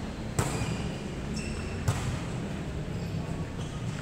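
A volleyball struck by hand twice, two sharp hits about a second and a half apart, over a steady low background hum of the gym.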